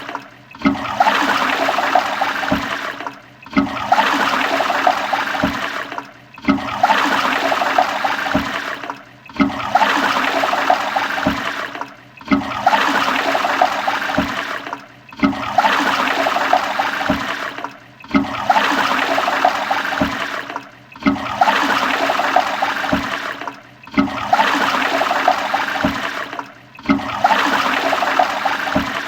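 Toilet flushing: a rush of water that starts abruptly, runs for about two and a half seconds, dips briefly, and starts again, repeating about every three seconds.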